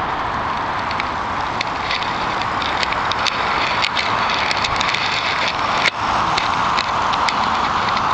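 Model electric locomotive and passenger coaches rolling along the track with a steady running hiss and irregular sharp clicks, growing more frequent as the train passes, typical of wheels crossing rail joints.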